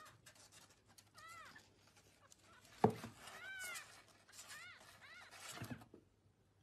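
Young kitten mewing, about five short, thin, high mews that rise and fall in pitch, with a sharp thump about halfway through, the loudest sound, and a softer knock near the end.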